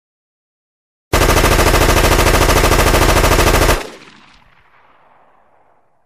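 AK-47 sound effect: a single sustained burst of fully automatic rifle fire, shots in rapid even succession, starting about a second in and cutting off sharply after about two and a half seconds, followed by a fading echo.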